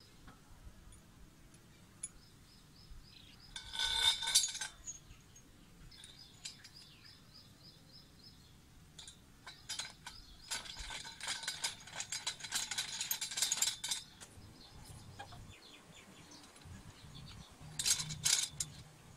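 Chrome-plated metal fittings and a threaded bolt clinking and rattling against a steel pipe as they are handled and fitted on. The clinks come in three clusters: a short one about four seconds in, a longer run of several seconds in the middle, and a brief one near the end.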